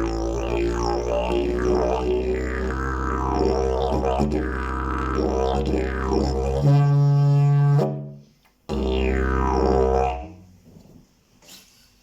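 Fiberglass triple-slide didgeridoo droning with sweeping overtones. About seven seconds in it jumps to a higher held note, breaks off, then the low drone returns briefly and stops about ten seconds in.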